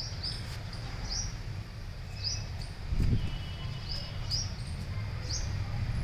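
Small birds calling, a short high rising chirp repeated about once a second, over a steady low rumble with one low thump about three seconds in.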